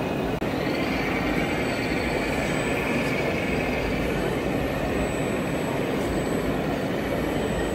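Steady din of a busy exhibition hall: crowd noise mixed with an even, engine-like rumble.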